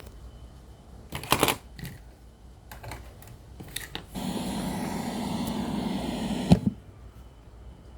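Mechanical clicks of a Sony CFS-1110S cassette radio's controls being worked, then a steady hum and hiss from the set for about two and a half seconds, cut off by a sharp click.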